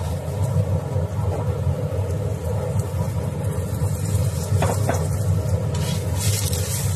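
Oil flatbread frying in a stainless electric wok, with a short spatula scrape on the pan a little past the middle and a brighter sizzle near the end as fresh oil hits the pan, all over a steady low rumble.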